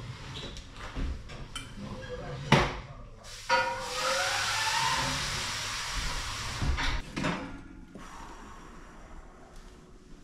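A sharp knock of kitchenware, then water running into a metal saucepan for about four seconds, its pitch rising as the pan fills, followed by a couple of light clatters.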